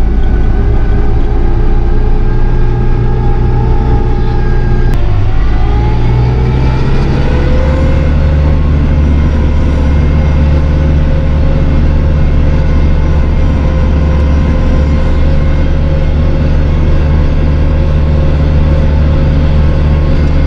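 An engine running steadily. About five seconds in it speeds up a little, then holds at the higher speed.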